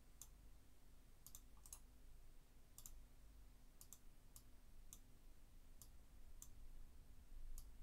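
Faint computer mouse clicks, one every second or so, some in quick pairs, over near-silent room tone.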